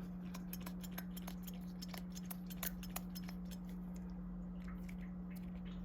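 Faint, scattered small clicks and taps of hands handling small knife parts and wiping cloths, over a steady low hum.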